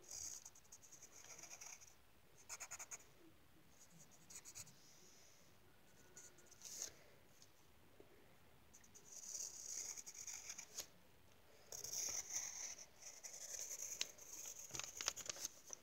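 Pencil scratching on lined notebook paper as lines are sketched: faint, in groups of short strokes with pauses between, busier in the last several seconds.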